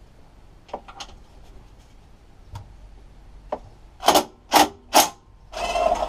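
Cordless drill-driver undoing fixings on a lawnmower engine: three short trigger bursts about four to five seconds in, then a longer run near the end. A few light clicks of handling come before.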